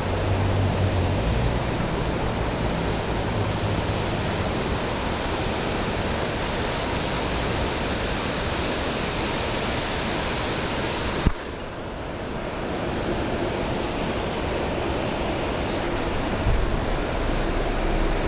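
Steady rushing roar of a waterfall and fast creek current. A single sharp knock comes about eleven seconds in, and the rush is briefly quieter after it.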